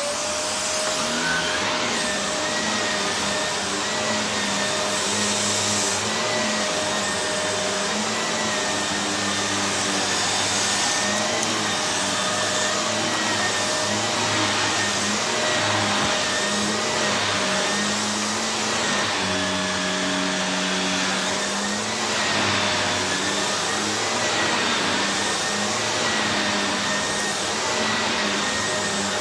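Upright vacuum cleaner running steadily as it is pushed over carpet, with a constant high whine over its rushing noise; the lower hum of the motor shifts in pitch now and then as the load changes.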